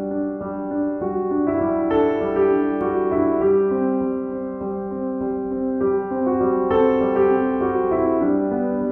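Solo piano playing a slow instrumental piece, with notes and chords held and overlapping as new ones enter every second or so.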